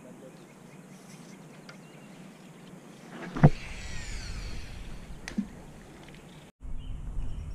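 A cast with a baitcasting reel: a sharp swish of the rod about three seconds in, then the spool's whine falling in pitch for about a second as line pays out, and a single click a little later.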